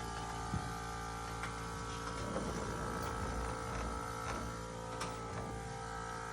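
Electric shearing clippers running with a steady hum, with a few faint clicks.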